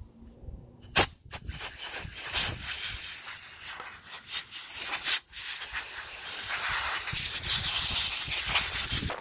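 Rubbing and scrubbing noise with scattered sharp clicks and knocks, the loudest about a second in and again around five seconds in.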